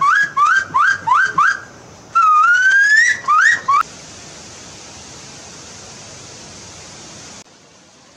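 A bird calling loudly in quick rising whistled notes, about five a second, then one long upslurred whistle and two more quick upsweeps, breaking off abruptly. A steady rushing hiss follows, dropping in level near the end.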